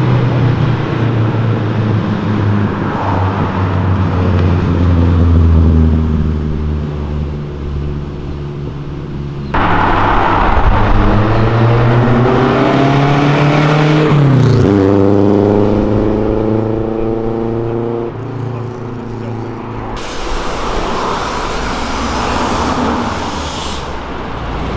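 Engine of an old classic car driving past on a city street, its engine note dropping sharply in pitch about halfway through as it goes by, then running steadily. The sound changes abruptly twice, with other passing car engines and traffic.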